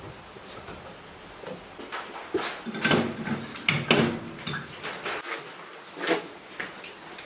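A few separate sharp metal knocks and clanks as a motor rotor is handled and set up in a metal lathe's chuck; the lathe is not running.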